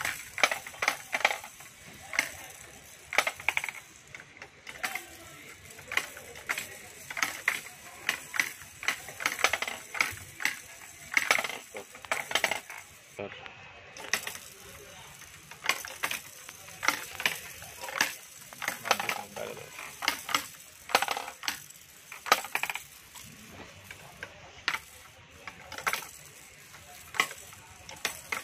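Small plastic balls dropping into and rolling down a stacked plastic spiral ball-drop tower toy, giving rapid, irregular clicks and rattles as they strike the tiers and drop through the holes.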